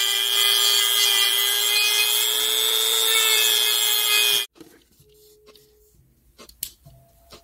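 Handheld rotary tool grinding the inside of a die-cast toy car's metal chassis with a small bit, to free the wheels so the car will roll. It makes a steady high whine over a grinding hiss that cuts off suddenly about four and a half seconds in, followed by a few faint clicks.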